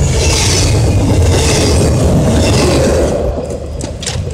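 Double-stack container freight train passing right beside the microphone: loud rumble and steel wheel-on-rail noise that falls away about three seconds in as the train clears. A few sharp clicks come near the end.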